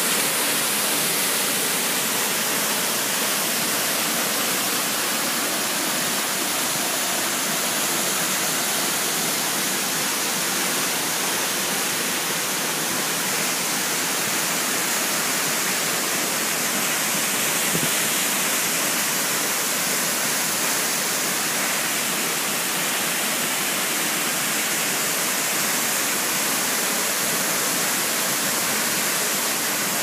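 A tall waterfall pouring down a rock face onto rocks and into a pool: a steady, even rush of falling water.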